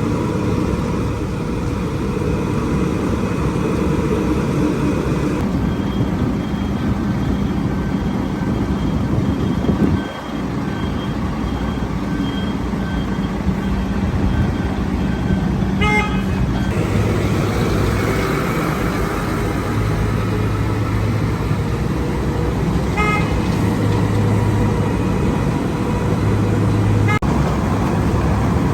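Heavy construction machinery engines running steadily, with a few short horn toots about halfway through and near the end.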